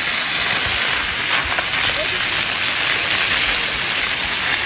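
Fountain jets shooting up and falling into a shallow basin, making a steady splashing hiss of falling water.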